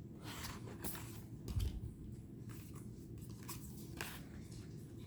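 Faint rustling and light clicks of tarot cards being handled and laid down, with a soft thump about one and a half seconds in.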